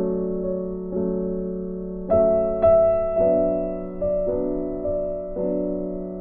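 Slow background piano music: soft chords struck about once a second, each left to fade.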